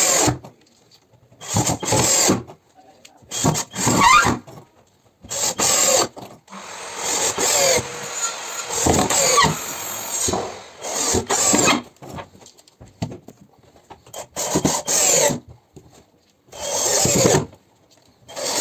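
Power-tool work on wooden floor boards: repeated short bursts of a drill driving screws, each with a rising and falling squeal, and one longer spell of grinding about seven seconds in.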